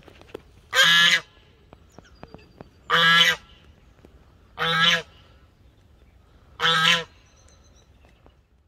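Brown domestic goose honking four times, each honk about half a second long and roughly two seconds apart.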